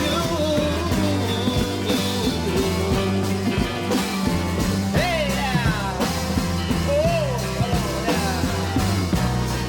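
Instrumental passage of a late-1960s psychedelic rock song: steady bass and chords with a bending lead line and drums.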